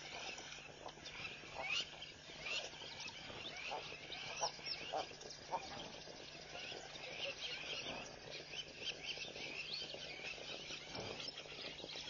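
A busy chorus of short, high chirping calls from small animals, several a second, with a faint steady hum underneath.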